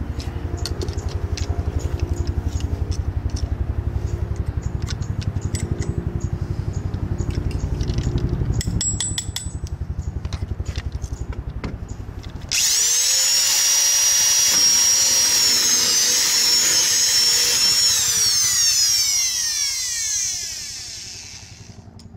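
A low, pulsing rumble with scattered clicks, then about halfway a high-speed power tool starts abruptly with a loud high-pitched whine. It runs steady for several seconds and then winds down with falling pitch near the end.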